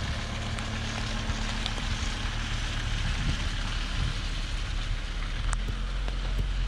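Camper van driving slowly along a wet dirt forest track: a steady low engine hum under the hiss of tyres on the ground.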